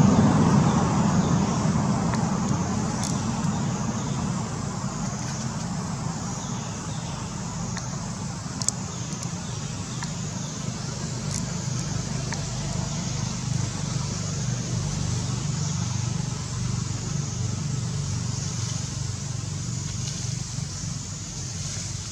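Road traffic: a steady low engine-and-tyre rumble, loudest at the start and easing off over the first few seconds, with a few faint clicks.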